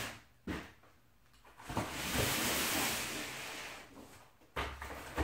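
Cardboard packaging and bubble wrap being handled: a short knock, then about two seconds of steady rustling and scraping, and a thump near the end as a cardboard-wrapped part is set down.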